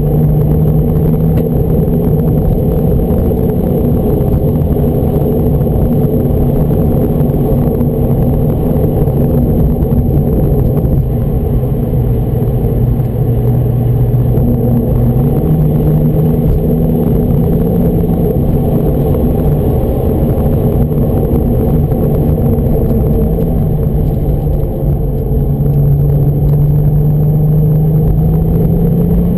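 Porsche 996 Turbo's twin-turbo flat-six heard from inside the cabin with road rumble, running at a steady pitch while driving along the runway. The engine note drops for a few seconds around the middle as the car slows toward the end of the runway, and it rises again near the end as the car pulls away.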